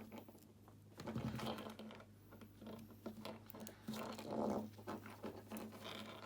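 Hand crimping tool clicking and scraping as it squeezes a butt connector onto stripped LED wires, in two bouts of rapid clicks, about a second in and again about four seconds in.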